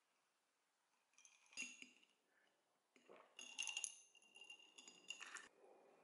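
Light clinks of glassware and tableware being handled on a table, each clink ringing briefly: a short cluster about one and a half seconds in, then a longer run of clinks from about three to five and a half seconds.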